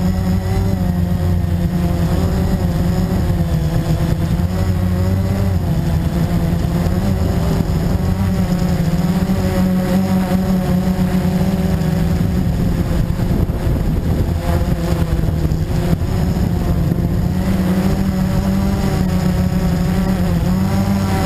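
Blade 350QX quadcopter's four brushless motors and propellers buzzing steadily, heard up close from a camera mounted on its frame. The pitch wavers up and down as the throttle changes in flight.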